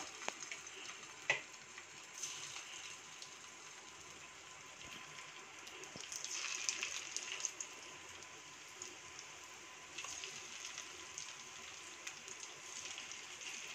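Masala-coated raw banana slices sizzling faintly in hot oil in a kadai as they are laid in one by one, the crackle swelling for a couple of seconds about halfway through.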